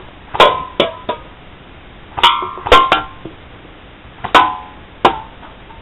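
Airsoft BBs fired one at a time striking aluminium drink cans on a wooden rail, knocking them off: about eight sharp hits in three or four clusters at irregular spacing, each with a brief metallic ring.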